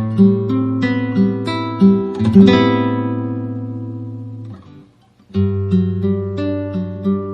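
Background music: acoustic guitar picking in a steady rhythm. A chord rings out and fades away about two and a half seconds in, leaving a brief gap before the picking resumes.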